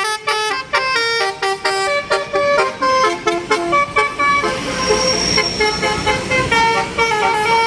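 A tour bus's telolet basuri musical horn playing a fast melody of short stepped notes, with vehicle engine noise swelling about halfway through.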